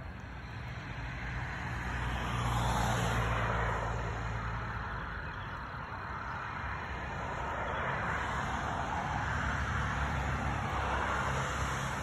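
Road traffic, cars passing: a rushing swell that peaks about three seconds in and another that builds toward the end, over a low steady rumble.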